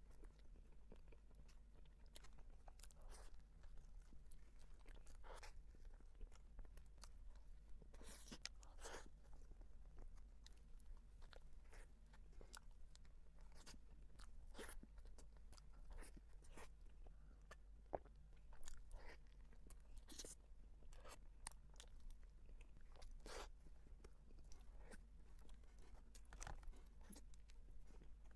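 Faint, close-miked chewing of soft cream-filled bread: scattered mouth clicks and smacks at an uneven pace.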